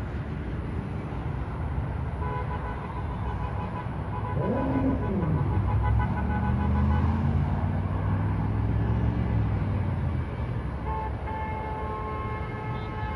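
Road traffic from a parade of cars and pickup trucks passing, with car horns honking. About four seconds in, a vehicle engine drone grows louder and holds for several seconds before easing off.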